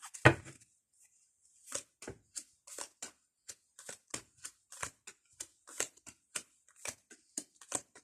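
Fortune-telling cards being dealt out onto a table one after another, each landing with a short slap, about two or three a second, after a single louder thump near the start.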